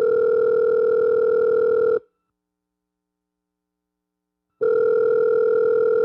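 Telephone ringback tone, the steady electronic purr heard down the line while a call rings: a two-second tone, a pause of about two and a half seconds, then a second tone starting near the end.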